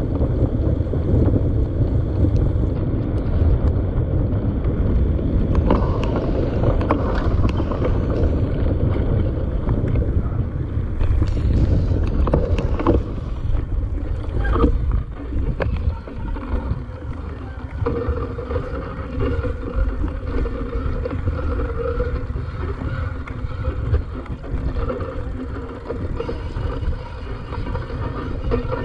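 Wind buffeting the microphone of a camera mounted on a mountain bike riding over beach sand, a continuous low rumble broken by scattered knocks and rattles from the bike.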